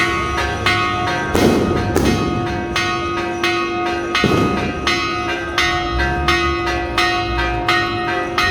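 Church bells of Chalatenango Cathedral pealing: several bells struck in quick succession, about three strikes a second, each ringing on over the next.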